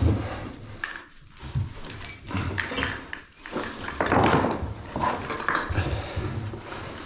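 Irregular clattering and scraping of debris being moved about by hand.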